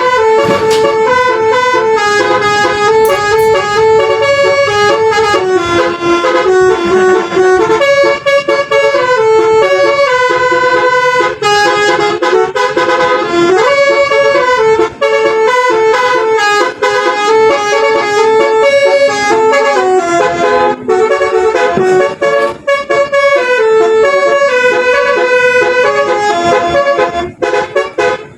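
Basuri 'telolet' multi-tone bus horn playing a melody of stepped, held notes, heard from inside the tour bus cabin. It plays almost without a break and dies away near the end.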